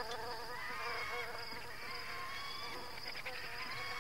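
Flies buzzing around a corpse: a continuous, slightly wavering drone.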